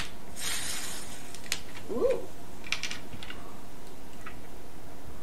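Short fizzing hiss as the cap of a 2-litre Coca-Cola bottle is twisted open and the carbonation escapes, followed by a few light clicks and taps.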